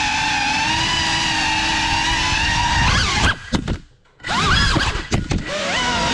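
Motors and propellers of a GEPRC Cinelog35 FPV cinewhoop whining, the pitch wavering with the throttle. About three seconds in the throttle is chopped: the whine breaks up and nearly stops for about a second, then spools back up with rising pitch and quick throttle blips.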